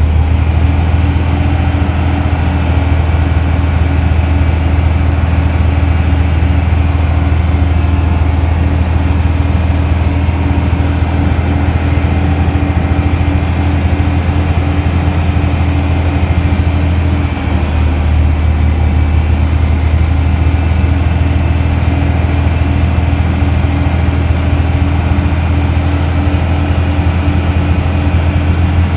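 Heavy vehicle's engine running steadily under way after being put in gear, a loud low drone with a brief dip about seventeen seconds in.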